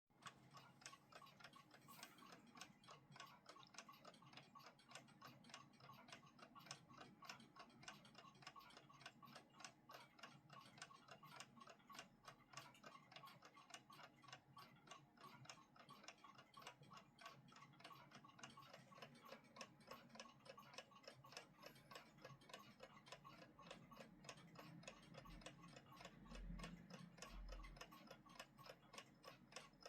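WWI-era wooden-cased 'Kriegswecker' mechanical alarm clock ticking quietly, a fast, even run of ticks, with a faint low thump near the end.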